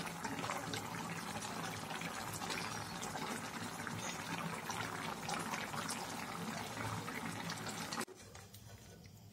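Pork and greens stew boiling hard in a wok, a steady bubbling fizz with many small pops over a low hum. It cuts off abruptly about eight seconds in.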